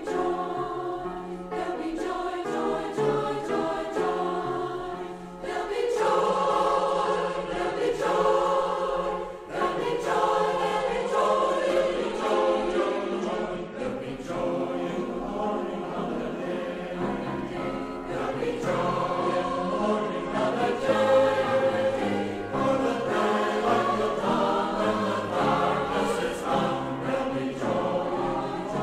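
A choir singing a Christian worship song with musical accompaniment.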